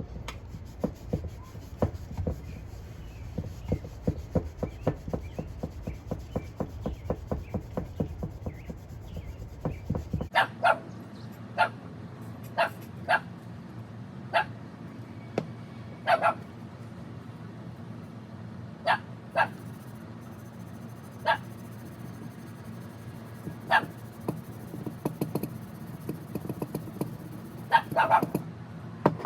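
Rag buffing the metal coin bank by hand, fast even rubbing strokes for about the first ten seconds. Then about a dozen short, sharp sounds, spaced a second or more apart.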